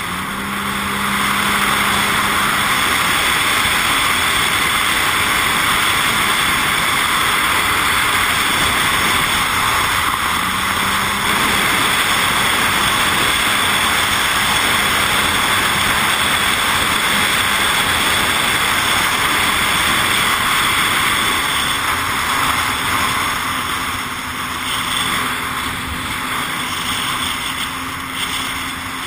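Jet ski running at speed: a steady engine drone under loud rushing wind and water noise. It gets louder over the first couple of seconds, the engine note lifts briefly near ten seconds, and it eases off somewhat near the end.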